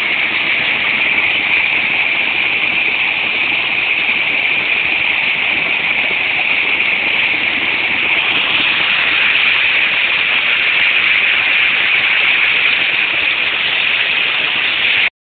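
Small woodland stream pouring over a short drop into a pool: a steady, loud rush of falling water that cuts off suddenly near the end.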